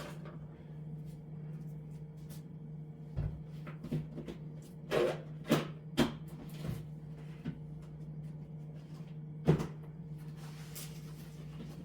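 Food packages and containers being set down on refrigerator shelves: a run of separate knocks and clatters, the loudest about nine and a half seconds in, over a steady low hum.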